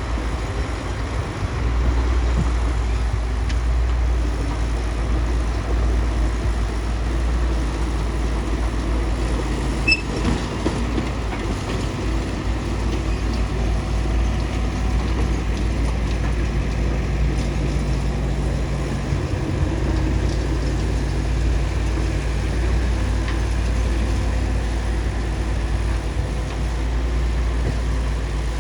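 Bulldozer's diesel engine running steadily under load, deep and low-pitched, with a single sharp knock about ten seconds in.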